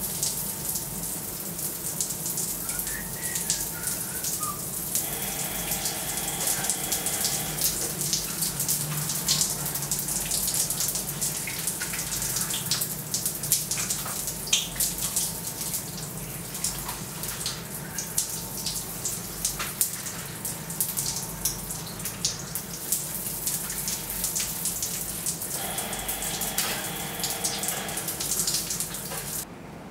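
Shower running: spray falling on a person and a tiled floor, a steady hiss full of small splashes and drips. It cuts off suddenly near the end.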